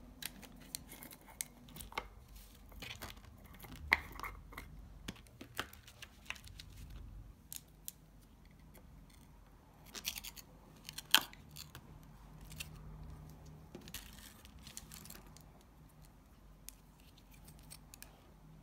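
Scattered clicks, taps and short scrapes of acrylic nail supplies being handled, such as powder jars and a plastic nail tip. The two loudest clicks come about four and eleven seconds in.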